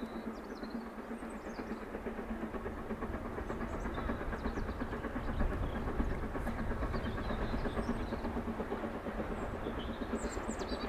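BR Standard Class 9F steam locomotive coming on with its train, working under steam, with the wheels running on the rails. The sound grows louder over the first half as it nears, then holds steady.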